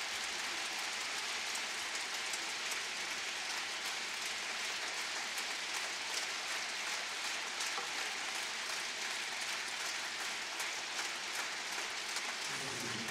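Large audience applauding steadily in a big concert hall: a dense, even wash of clapping that holds at one level throughout.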